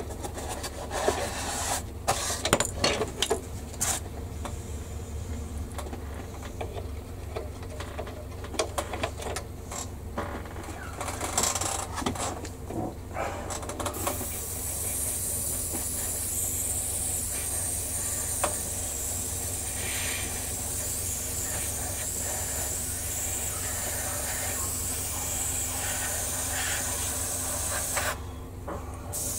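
Handling clicks and knocks on a plastic model kit, then from about halfway a gravity-feed airbrush hissing steadily as it sprays paint, breaking off briefly near the end.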